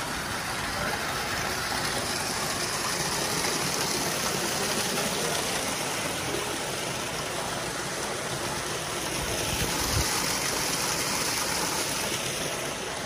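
Steady rushing and splashing of water pouring from PVC pipes and churning in aerated fish-farm tanks, with a brief low thump about ten seconds in.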